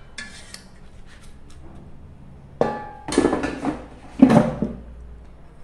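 Air fryer basket being put back into the air fryer: a sharp knock a little over two and a half seconds in, then two louder clattering thuds around three and four seconds in, the second the loudest.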